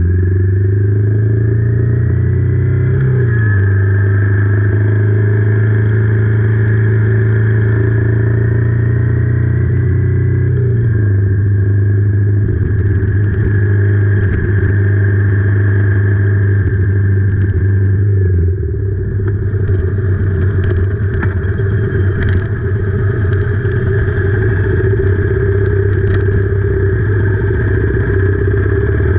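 Royal Enfield Meteor 350's single-cylinder engine running on the road in heavy rain. Its pitch drops about three seconds in and again around ten seconds. About two-thirds of the way through, the steady note turns rougher and noisier, with scattered clicks.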